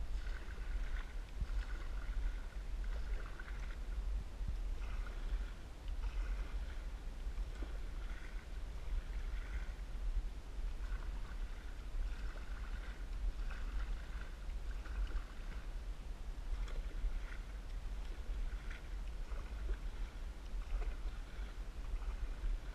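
Canoe paddle strokes: the blade dipping and pulling through calm lake water, with splashes and trickles recurring every second or two over a steady low rumble.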